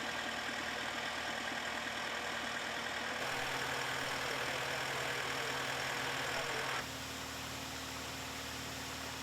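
Steady engine running at idle, with the background changing abruptly about three and about seven seconds in.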